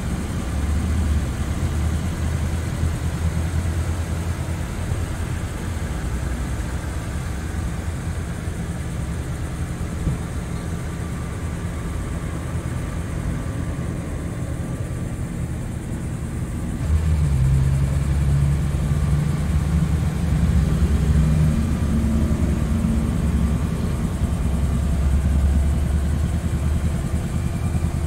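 BMW M3 Competition's twin-turbo straight-six idling steadily, a low hum that gets louder about seventeen seconds in.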